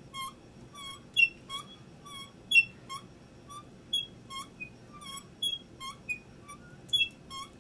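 Hand-cranked drill squeaking in short chirps, about two to three a second, as it is turned to bore a 1/8 inch hole into a wooden stick.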